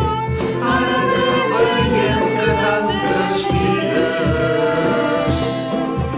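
A group of voices singing a song together, accompanied by accordion, violin, guitar, clarinet, recorder and cajón keeping a steady beat.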